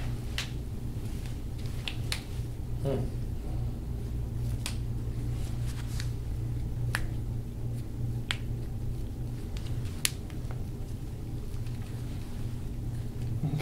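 Hands kneading and gripping a man's forearm, with a scatter of sharp, light clicks about one every second or two, over a steady low hum.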